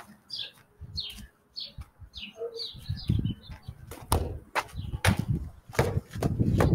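A soccer ball being kicked and knocking off a house wall and the ground: several sharp thuds from about three seconds in, over a low rumbling noise. A small bird chirps repeatedly in the first half.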